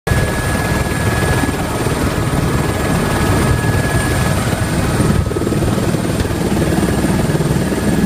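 Airbus AS350 Écureuil helicopter heard from inside the cabin in flight: steady, loud rotor and single turbine engine noise, with a thin steady whine above the low rotor rumble.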